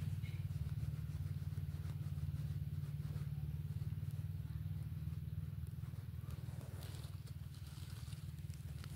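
Gloved hand scraping and scooping loose soil out of a dug hole to free a wild yam tuber, with faint rustles of dirt as the tuber comes free near the end. A steady, rapidly pulsing low hum underlies it throughout.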